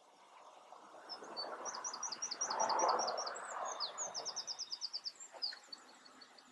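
Welshpool and Llanfair Light Railway No. 823 'Countess', a Beyer Peacock 0-6-0 narrow-gauge steam tank engine, moving slowly with a hiss of steam that swells and then pulses quickly, about five beats a second. A songbird sings a run of repeated high notes over it.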